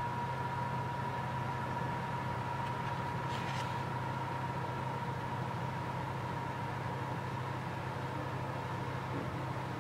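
A steady low mechanical hum with a thin steady high tone over it. About three and a half seconds in there is a brief soft brushing sound as a brioche loaf is set on a wire cooling rack.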